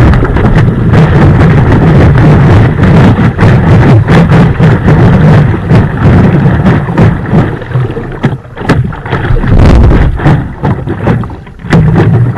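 Wind buffeting the microphone of a camera mounted on the nose of a stand-up paddleboard, as a loud low rumble, with water splashing and slapping against the board as it rides through choppy water. It eases off in patches after about eight seconds and picks up again near the end.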